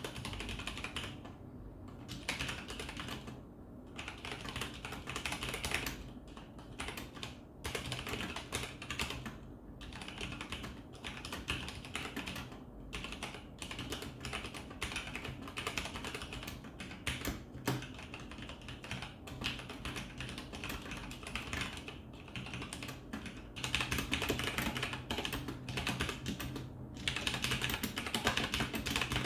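Typing sound test on a Corsair K95 Platinum mechanical keyboard with unlubed Cherry MX Brown switches and thick PBT keycaps: a fast run of key clacks broken by short pauses, getting quicker and louder near the end.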